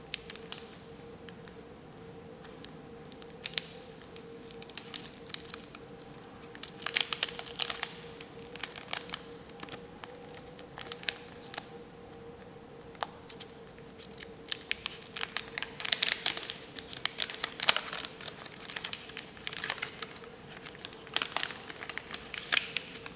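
Waxed-paper wrapper of a 1990 Topps baseball card wax pack being torn and unfolded by hand: irregular crinkling and tearing, sparse at first and coming in thicker bursts later on. A faint steady hum runs underneath.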